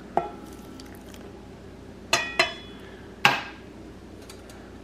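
Glass and stainless steel kitchenware clinking: a light tap, then two quick knocks about two seconds in and a third a second later, each ringing briefly like a metal bowl. A glass of whisked eggs is being emptied into a stand mixer's steel bowl.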